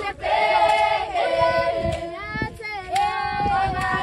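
A group of female voices singing a song together in the open, long held notes sliding from one pitch to the next, with a short break between phrases.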